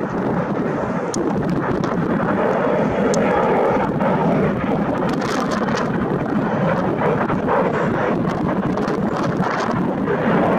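Airliner engines running, a dense steady noise that swells slightly in the middle, with gusty wind buffeting the microphone.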